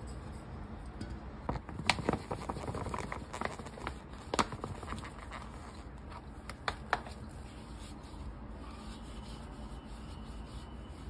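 An apple being handled in a plastic bowl: a few sharp knocks as it is set down and powder is shaken over it from a cardboard box, then hands rubbing and scrubbing the apple in water.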